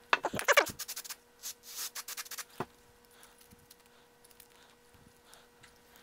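Metal parts of a diesel air heater being handled and set down on a workbench: a quick run of clicks and knocks in the first two to three seconds, then near quiet with a faint steady hum.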